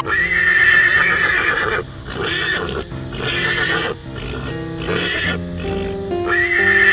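A horse neighing: one long wavering whinny, then three shorter calls and another near the end, over background music.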